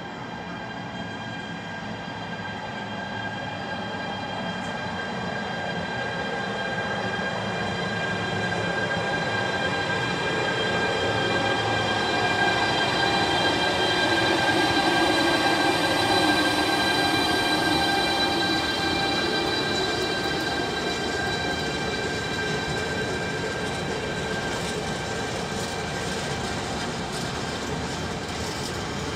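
Freight train hauled by two E.405 electric locomotives passing through a station, followed by a long string of container wagons rolling by. It grows louder as the locomotives draw level about halfway through, then eases off as the wagons run past. Steady high whining tones ride over the rumble of the wheels throughout.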